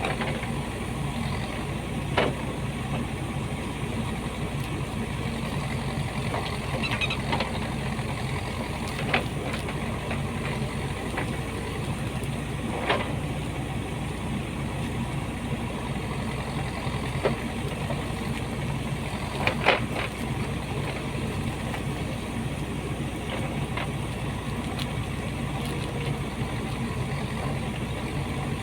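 Backhoe excavator's diesel engine running steadily while digging, with a few short sharp clanks, the loudest about two-thirds of the way through.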